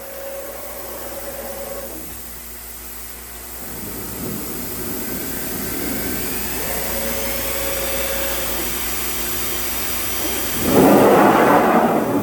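Multicam CNC router running, a mechanical whirring whose steady tones start and stop, building up about four seconds in with a faint rising whine. Near the end it turns much louder and noisier for about a second and a half.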